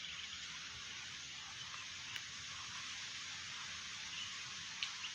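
Steady hiss of strong wind, with a few faint clicks.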